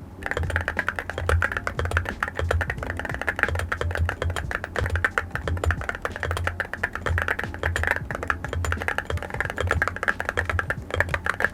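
Fast, continuous typing on a mechanical keyboard with an all-metal case: a dense run of key clacks, many a second.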